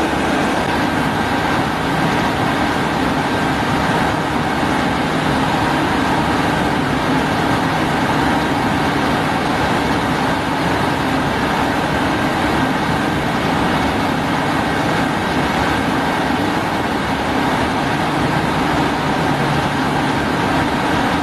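Steady, unbroken running noise of machinery, with a thin constant whine above it.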